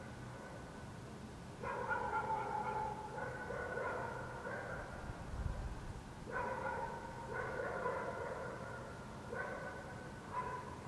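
Dogs barking: a string of about six drawn-out barks in two runs, with a pause around the middle, over a low steady hum.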